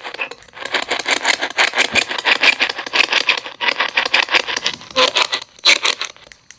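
Ghost-hunting spirit box sweeping through radio stations: a fast, choppy rattle of static with snatches of sound, many chops a second, stopping about six seconds in.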